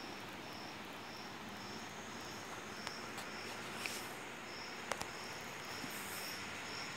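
An insect, cricket-like, chirping in a steady high-pitched rhythm about twice a second over an outdoor hiss. A few short clicks come near the middle.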